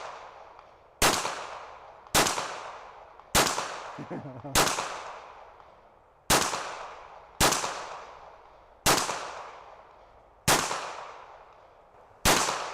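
.380 semi-automatic pistol firing nine single shots at an uneven pace, one every one to two seconds. Each sharp crack trails off in a long echo.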